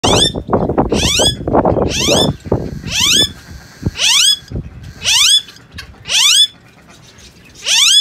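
Alexandrine parakeets screeching: about eight harsh calls, each rising sharply in pitch, repeated roughly once a second. Wing-flapping rustle comes under the first few calls.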